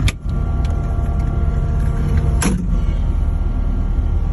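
Skid steer's diesel engine idling steadily, with two sharp clicks over it: one right at the start and one about two and a half seconds in.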